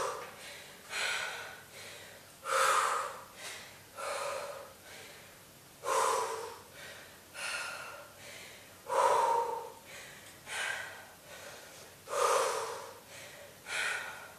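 A woman breathing hard in a steady rhythm from the exertion of hamstring heel-up kicks, a breath about every one and a half seconds, every other one louder.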